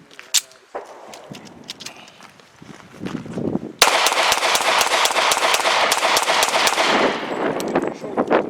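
Faint scattered cracks, then, about four seconds in, loud rapid automatic gunfire that goes on for several seconds as a dense stream of shots.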